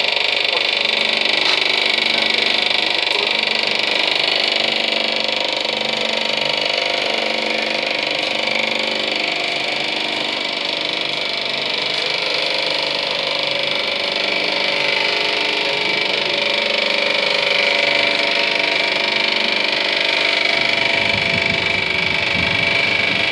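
Running cutaway model of a tractor's engine and drivetrain: its sectioned pump, gears and shafts turning with a steady mechanical whir and clatter. A low rumble joins near the end.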